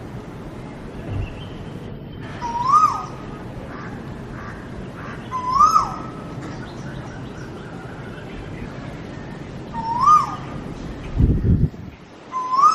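A bird's call played as a ringtone: one short whistled note that rises and then falls, repeated four times about three seconds apart. A low thump comes near the end.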